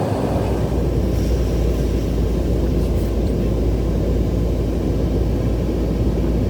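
Steady low rumbling noise with no clear rhythm or pitch, deepest and strongest at the very bottom, starting abruptly.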